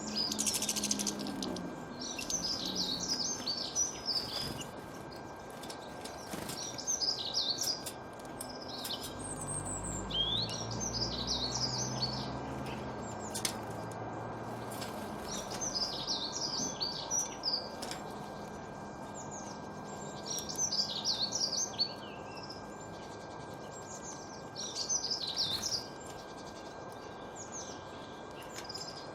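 Wild songbirds singing in the open: a burst of quick, high chirping phrases every few seconds, about seven bursts in all, over a steady background hiss.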